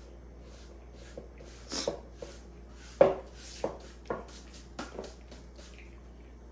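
Chopped onions being scraped and tipped into a bowl of ground bison: a series of short knocks and scrapes against a cutting board or bowl, the loudest about three seconds in.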